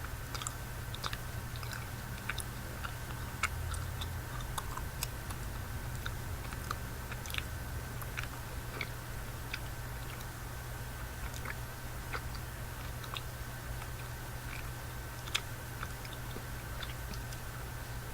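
Close-miked chewing of a Cow Tales candy, a chewy caramel tube with a cream filling: wet mouth clicks and smacks scattered all through, over a steady low background hum.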